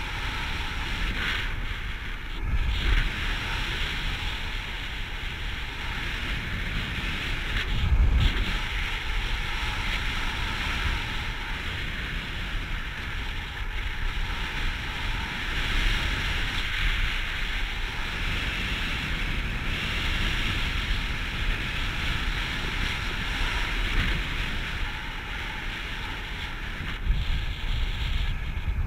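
Wind rushing over an action camera's microphone during paraglider flight: a steady rush with louder, low buffets about 3 and 8 seconds in.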